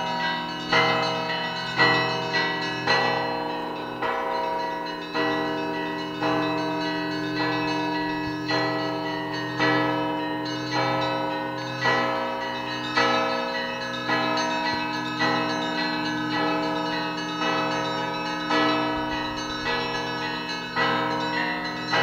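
Russian Orthodox bell ringing (zvon) from a monastery belfry: several bells of different sizes struck together in a steady pattern, about one strong stroke a second. The tones of the bells ring on and overlap, with a continuous low hum from the big bells beneath.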